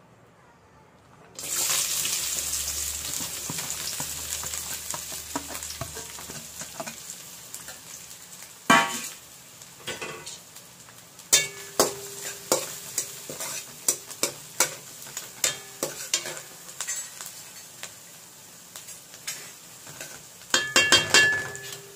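Chopped onions, green chillies and coriander dropped into hot oil in an aluminium kadai, setting off a loud sizzle about a second in that slowly dies down. From about nine seconds a metal spatula stirs the onions, scraping and knocking against the pan, with a quick flurry of knocks near the end.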